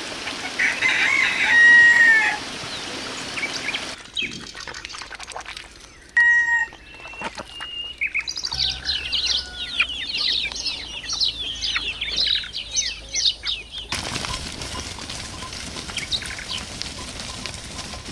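Chickens calling, with a loud drawn-out call about two seconds in and a short call a few seconds later. In the middle comes a stretch of rapid high chirping. The background changes abruptly twice.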